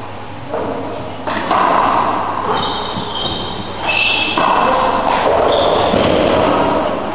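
Handball rally in an echoing four-wall court: sharp knocks of the ball off the walls and floor, high squeaks of sneakers on the wooden floor about halfway through, and loud reverberant voices swelling about a second in and again near the middle.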